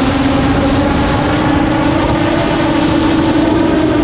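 A custom-built long-range FPV quadcopter's motors and propellers whining steadily in the air, the pitch creeping slowly upward, over a rough low rumble.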